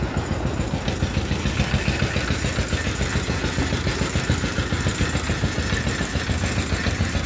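A small engine running steadily with a low, fast-pulsing drone.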